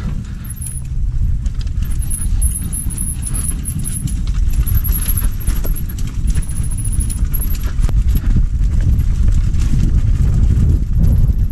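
Mountain bike rattling and clattering over a rough, rutted dirt trail, with tyres on dirt and wind rumbling on the camera microphone. It gets louder in the last few seconds as the trail opens out and speed rises.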